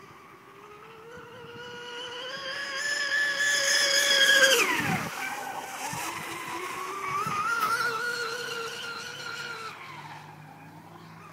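Fast electric RC boat running at full speed, the whine of its Leopard 4074 brushless motor on a 5S2P pack climbing in pitch and loudness as the boat comes in. The whine drops steeply in pitch about halfway through, then rises again and fades near the end.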